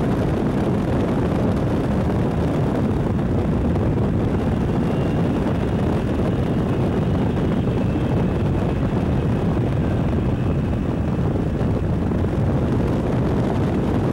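Steady, loud rumble and rush of a moving vehicle heard from inside, with road and wind noise and no breaks. It cuts off suddenly at the end.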